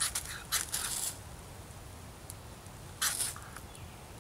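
Belt knife scraped hard down a firesteel (ferrocerium rod) held in a pile of wood shavings, striking sparks to light them. Four quick hissing scrapes come in the first second, then another strike about three seconds in.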